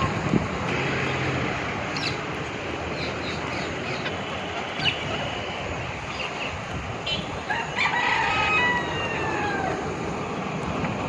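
Birds calling over a steady background hiss: scattered short chirps, then about eight seconds in one long call that falls in pitch toward its end.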